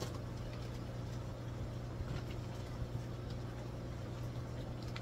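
Steady low electrical hum of the room's running aquarium equipment, with a few faint light clicks and crinkles of plastic fish bags being handled.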